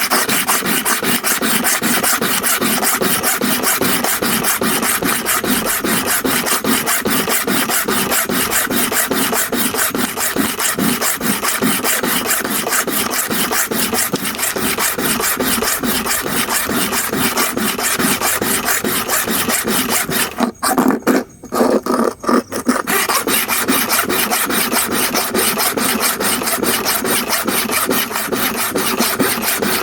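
Hair clipper blade rubbed rapidly back and forth on a diamond sharpening stone: a steady rasping scrape at several strokes a second, stopping and starting again briefly about two-thirds of the way through.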